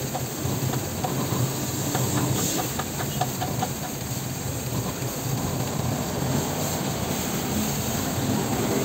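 Water jet from a hose nozzle hissing and spattering against a scooter's plastic bodywork, over a steady low motor hum.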